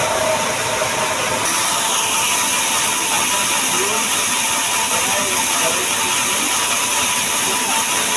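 A machine running steadily with a continuous hiss and a faint steady whine, typical of woodworking machinery at work.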